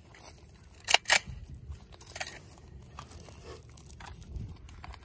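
Hand tearing and crinkling the ripped duct tape and shredded filling of a homemade armor panel around a bullet hole, with two sharp snaps about a second in.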